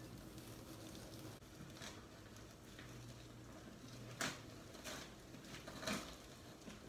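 Faint rustling and scraping of pothos leaves, roots and potting soil being handled as the plant is pulled apart, with a few short, louder rustles in the second half.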